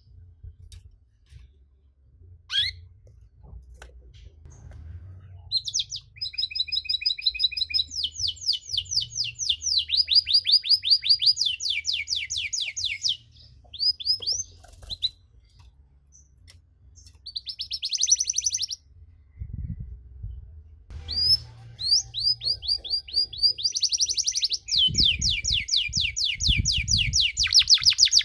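Domestic canary singing: long rolling trills of fast repeated notes in several phrases, the longest about seven seconds, with short pauses between them. A low rumble runs underneath in the second half.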